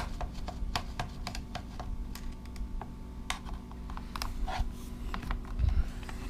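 Small screwdriver undoing screws in the 3DR Solo drone's plastic body: irregular light clicks and taps of metal on screw heads and plastic, a few a second, over a faint steady hum.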